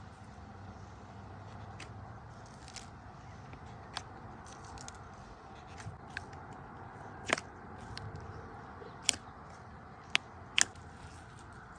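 Fingers poking and pressing slime in a plastic tub, giving a few sharp clicking pops, the loudest in the second half, over a steady low background hiss.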